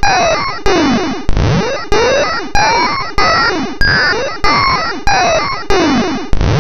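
Harsh computer-generated sound effect from a malware payload: a short synthesized loop that restarts abruptly about every two-thirds of a second, each pass full of tones sliding up and down across one another.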